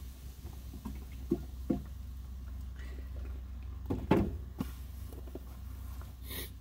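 A few light knocks and clicks from objects being handled, the loudest about four seconds in, over a steady low hum.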